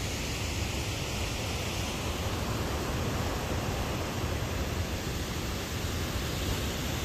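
Steady rushing noise of fast, high water pouring through a dam's spillway, with a deep rumble underneath.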